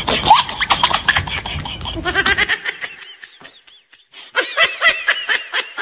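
Laughter: rapid bursts of laughing over a noisy background that thin out about two and a half seconds in. After a short lull comes a quick run of high snickers, about five a second.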